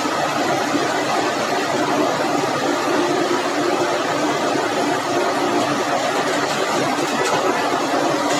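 Heavy engines running steadily and loudly, close by, as a tipper truck tips asphalt mix into a road paver's hopper.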